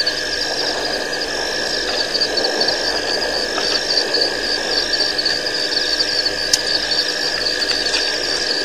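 Night chorus of calling animals at a waterhole: a high, pulsing trill repeating about once a second over a steady lower drone.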